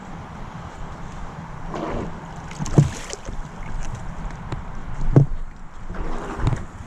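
Hands handling an RC speedboat's hull, likely opening its hatch to check for water inside: rustling with two sharp knocks, one about three seconds in and one near five seconds.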